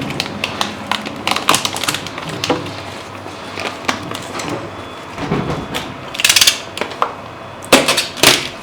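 Hands unpacking a 3D printer's packaging: scattered knocks, clicks and rustles, with a louder scraping rustle about six seconds in and a quick cluster of knocks near the end.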